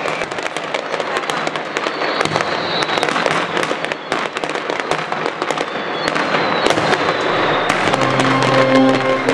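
Mascletà firecrackers going off in a dense, rapid crackle of bangs and pops. Music comes in near the end.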